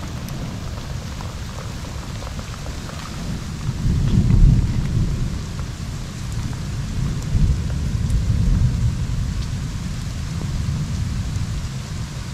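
Steady rain falling in a forest, with a low rumble of thunder that swells about four seconds in and rolls on for several seconds.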